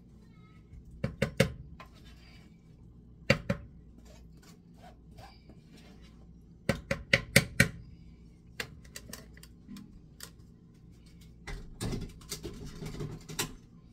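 Hard plastic blender jar being handled: scattered sharp clicks and knocks, with a quick run of taps about seven seconds in and a longer clatter near the end. No blender motor is running.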